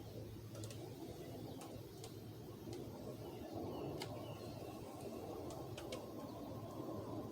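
Faint background noise with a steady low hum and a few light, scattered clicks; a faint steady tone comes in about six seconds in.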